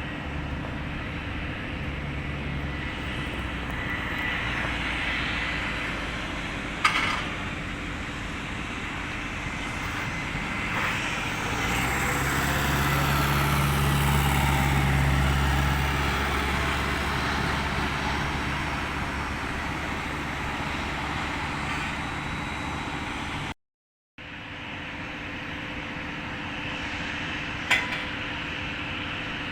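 Jet airliner on landing approach, its engine noise swelling to a peak about halfway through and then easing off over a steady low rumble. Two sharp clicks stand out, and the sound cuts out briefly near the end.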